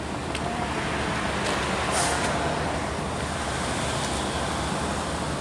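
Highway traffic passing close by, heavy trucks among it: a steady run of engine and tyre noise that swells as a vehicle goes past, loudest about two seconds in.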